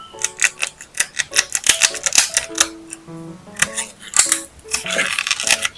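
Rapid, crisp clicks and taps of paper pieces being handled, with a longer paper rustle near the end, over light plucked background music.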